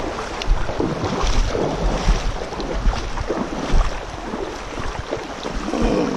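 River water rushing over a shallow stony run, with wind buffeting the microphone in irregular low gusts.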